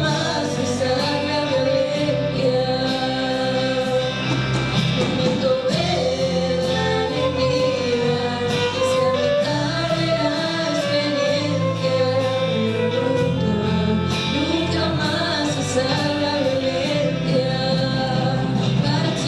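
Live rock band playing, with a singer holding long, wavering notes over bass and drums.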